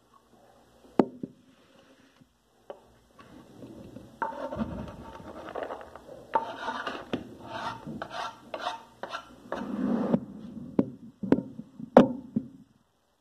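Kitchen knife working on a wooden cutting board: a stretch of repeated scraping strokes, then several sharp knocks near the end.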